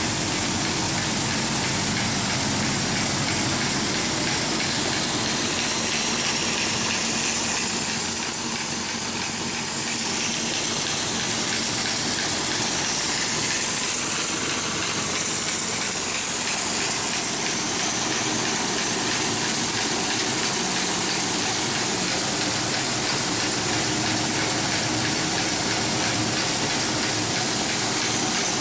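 DoAll ZW-3620 Zephyr high-speed vertical band saw running steadily in its high speed range: a loud, even rushing hiss with a low motor hum beneath.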